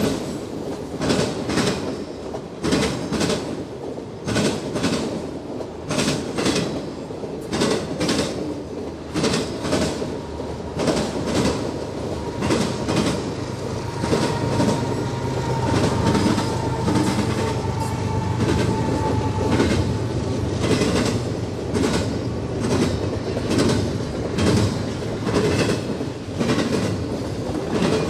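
Freight train cars rolling past, their wheels clicking steadily over rail joints in a repeating clickety-clack over a running rumble. For several seconds in the middle a faint thin whine rises above it.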